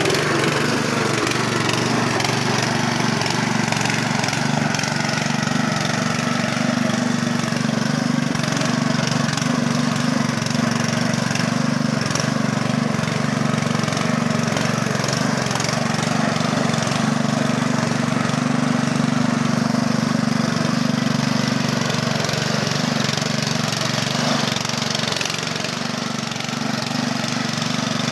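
Small engine of a motorized wheelbarrow (power barrow) running steadily as it drives along.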